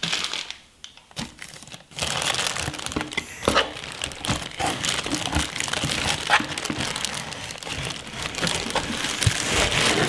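Clear plastic wrapping crinkling continuously as the wrapped glass parts of a vacuum siphon coffee maker are gripped and pulled out of a cardboard box. It starts about two seconds in, with many small crackles.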